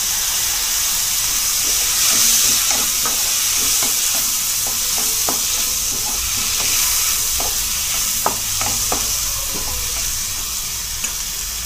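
Sliced onions, green chillies and freshly added chopped tomatoes sizzling in hot oil in a non-stick kadai, with a steady frying hiss. A wooden spatula stirs them, scraping and tapping against the pan many times.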